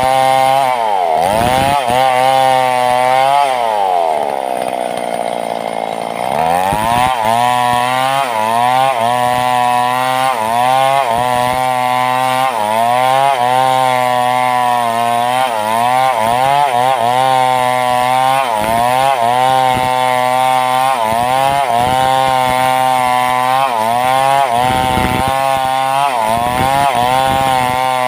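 Two-stroke chainsaw cutting through a thick log. Its engine pitch sags deeply under load a few seconds in, then rises and falls over and over as the chain bites into the wood.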